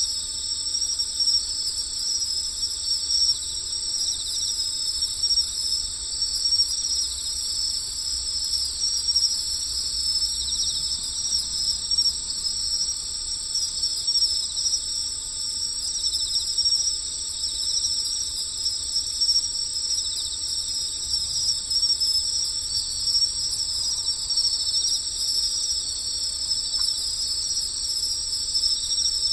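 Steady insect chorus: continuous high-pitched trilling that never pauses.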